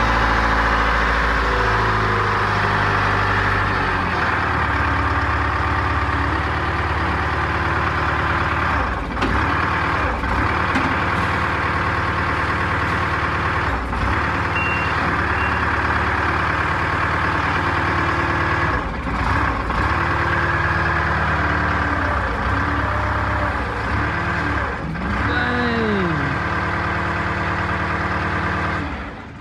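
Gradall telescopic material handler's Detroit Diesel engine running under load while its hydraulics raise the boom. The engine speeds up in steps over the first few seconds, then runs steadily with a few brief dips.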